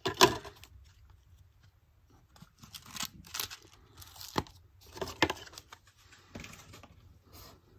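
Plastic CD and DVD cases being handled: short irregular clicks and rustles as the cases are picked up, turned and set down.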